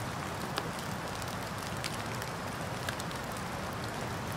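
Small wood campfire crackling, a few scattered sharp pops over a steady background hiss.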